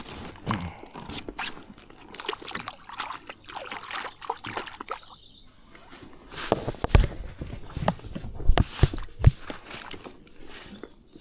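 Water sloshing and dripping with scattered clicks and handling knocks as a caught trout is released back into the water, with several heavy thumps past the middle.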